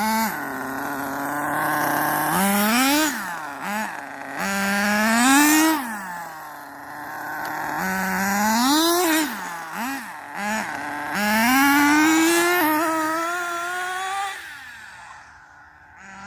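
Battery-powered RC car (a Traxxas Rustler with a Jato two-speed transmission) whining under throttle, its pitch rising and falling again and again as it speeds up and backs off, with a few short blips about ten seconds in. The whine fades away near the end.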